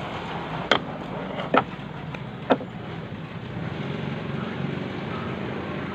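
Three sharp snips of scissors cutting open a carton of all-purpose cream, about a second apart, over a steady background rumble.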